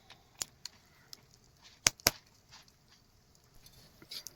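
A few scattered light clicks and knocks, with two sharp ones close together about two seconds in.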